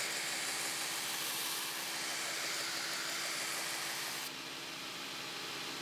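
Belt grinder running steadily, its sanding belt grinding the bevel of a steel blade. About four seconds in the high hiss drops off.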